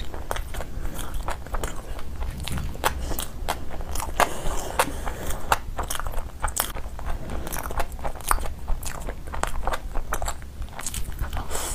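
Close-miked chewing of a shawarma wrap: irregular crunches and wet mouth clicks, one after another.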